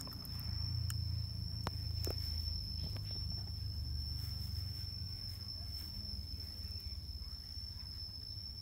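Low rumble and a few faint clicks from a plastic battery pack being handled and turned over close to the microphone, over an unbroken high-pitched whine.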